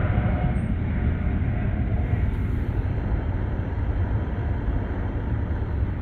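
Small 800-watt electric kettle boiling half a litre of water, a steady low rumble with a hiss over it: the water is close to a full boil.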